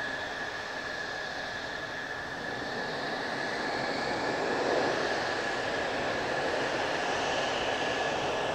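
General Electric F110 turbofan engines of several Mitsubishi F-2 fighters taxiing at low power: a steady high whine over a rushing roar that swells a little about halfway through as the lead jet passes.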